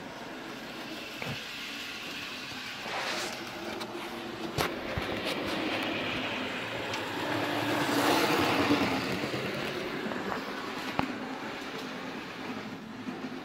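HO-scale Thomas the Tank Engine model locomotive running on its track: a steady electric-motor whir and wheel rumble that grows louder to a peak past the middle as it comes close, then fades, with a few sharp clicks along the way.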